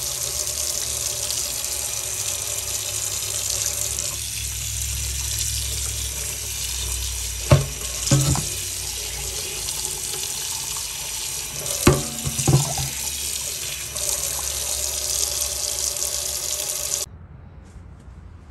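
Kitchen tap running water onto a cast iron cornbread pan in a stainless steel sink, with a few sharp knocks about halfway through. The running water stops suddenly near the end.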